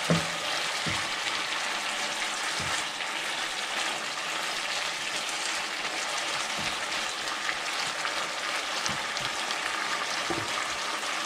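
Thinly sliced pork liver and chives sizzling steadily in a soy-based sauce in a nonstick frying pan, stirred now and then with a spatula.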